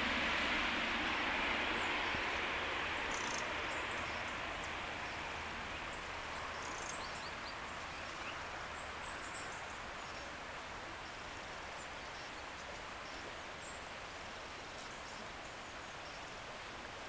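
A broad rushing noise that slowly fades away, with a few short, faint bird chirps in the first half.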